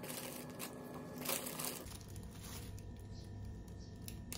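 Soft rustling and crinkling with a few light taps, as hands handle food and wrappers and set papaya pieces on a plate. The strongest rustle comes about a second and a half in, and there is a short tap near the end.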